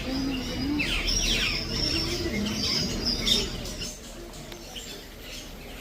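Many birds chirping and whistling at once, with quick high chirps and short downward-sliding calls overlapping. It is busiest for the first three seconds or so, then thins out and gets quieter.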